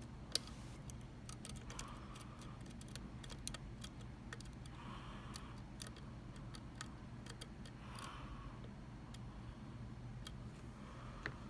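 Lock pick working the pins inside a Mul-T-Lock MT5 lock cylinder: irregular small metallic clicks and ticks, one sharper click about half a second in, over a steady low hum.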